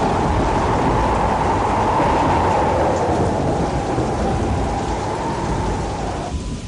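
Sound effect from the show's soundtrack: a steady, loud rushing noise with a held tone over it. The tone stops just before the end and the noise begins to fade.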